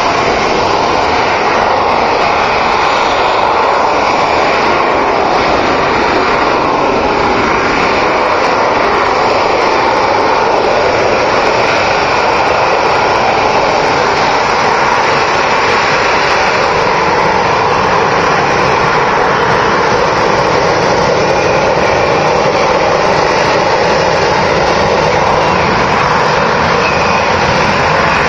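Fixed-wing airplane engine running loud and steady, a constant rushing noise without distinct beats or pitch changes.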